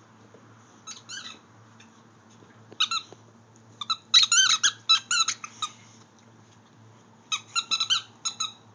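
Dog chewing a squeaky toy, squeezing out short high squeaks in bursts: one about a second in, a pair near three seconds, a rapid string from about four to nearly six seconds, and another flurry near the end.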